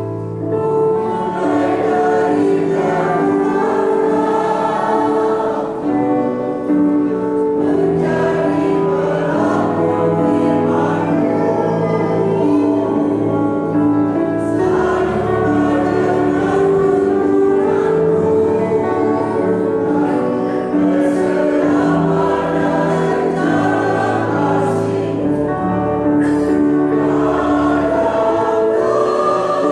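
Mixed choir of elderly men and women singing an Indonesian hymn in parts, with long held notes.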